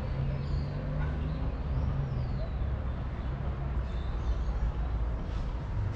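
Outdoor town ambience: a steady low rumble of distant traffic, with faint bird chirps coming through high above it a few times.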